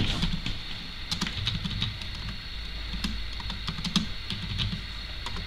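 Typing on a computer keyboard: irregular key clicks throughout.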